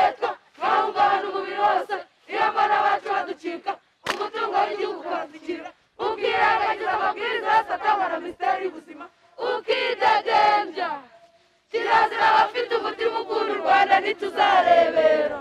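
A group of young people chanting together in unison, in short phrases separated by brief pauses.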